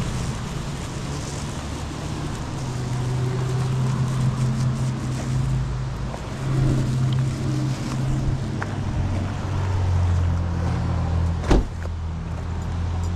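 A motor vehicle's engine running at idle, a steady low hum whose pitch drops lower about two-thirds of the way through. One sharp knock sounds near the end.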